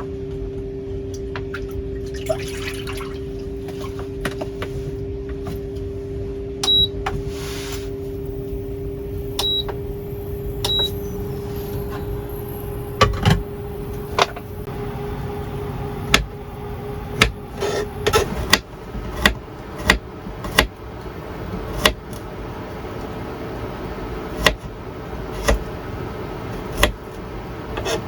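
A cooking appliance hums steadily and gives three short, high beeps. The hum then fades and a series of irregular sharp knocks and clatters of cooking utensils follows, about one a second.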